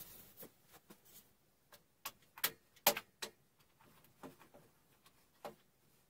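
Light, irregular clicks and knocks of sash clamps and tools being handled against an MDF carcass during a glue-up, loudest in a cluster around the middle.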